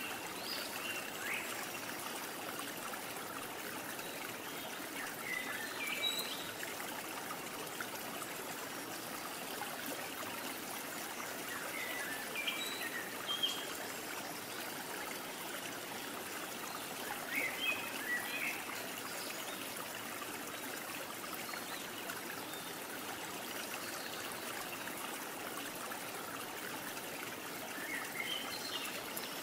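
Steady hiss of flowing water, like a stream or brook, with short high chirps in small clusters every few seconds.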